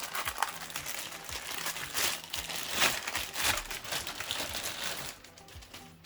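Plastic packaging crinkling and rustling as a tablet tripod is handled, with scattered sharp crackles, dying away about five seconds in.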